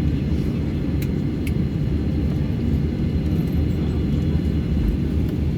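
Cabin noise inside a Boeing 737-800 on the ground after landing: a steady low rumble, with two short clicks about a second in.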